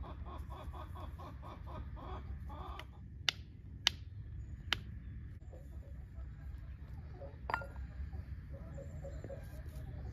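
A few sharp clinks, one at a time and spaced about a second or more apart, over a steady low rumble. A quick run of soft, evenly repeated notes comes in the first three seconds.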